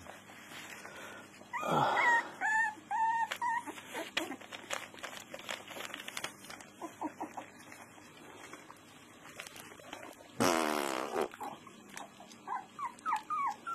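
Puppies whimpering: runs of short, high whines in little bunches, with a louder cry about ten seconds in.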